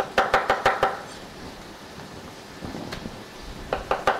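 Chef's knife chopping garlic cloves on a plastic cutting board: quick runs of knocks, about seven a second, one at the start and another near the end.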